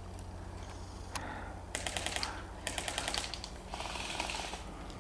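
Airsoft guns firing two short bursts of rapid clicks, about two seconds in and again about a second later, followed by a short hiss.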